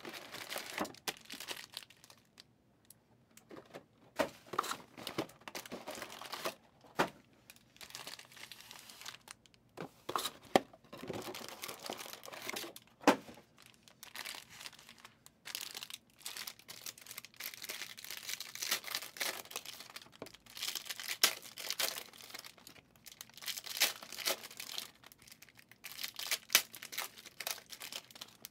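Trading card packs being torn open by hand: wrappers tearing and crinkling in irregular crackles, with cards handled and shuffled between. The crinkling gets busier in the last ten seconds or so.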